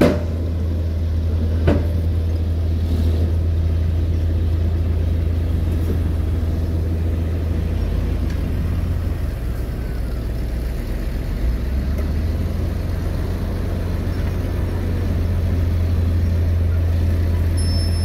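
Heavy dump truck's diesel engine running steadily as the raised bed tips out a load of dirt, a constant low drone, with a couple of short knocks near the start.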